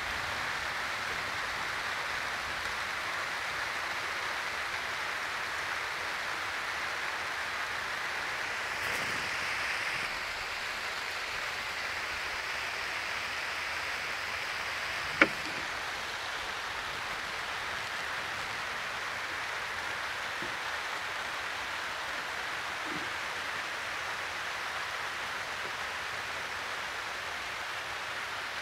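Steady outdoor hiss with no clear pitch or rhythm, and one sharp click about fifteen seconds in.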